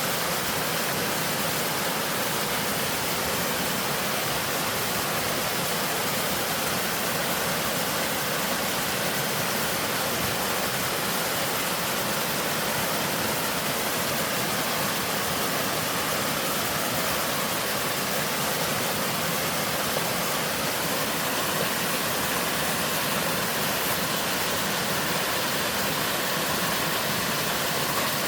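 Waterfall on a mountain stream, water pouring over rock in a steady, unbroken rush that is bright and hissy, with little deep rumble.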